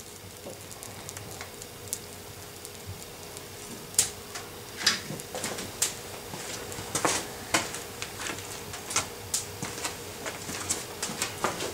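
Wood-burning cookstove crackling: irregular sharp ticks and pops, sparse at first and coming about once or twice a second from about four seconds in, over a faint steady hum.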